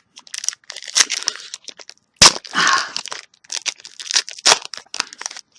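A trading-card booster pack's wrapper being torn open and crinkled: a run of crackling tears and rustles, with one sharp snap about two seconds in.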